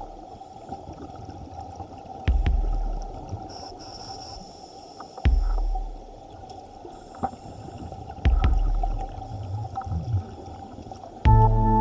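Underwater scuba breathing: a regulator's exhaled bubbles burble out in three loud low bursts about three seconds apart, over a steady underwater hiss. Music comes in near the end.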